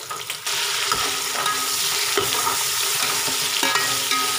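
Sliced onions and tomatoes frying in hot oil and ghee in a metal pot, stirred with a steel spoon that clinks and scrapes now and then; the sizzle swells suddenly about half a second in and then holds steady.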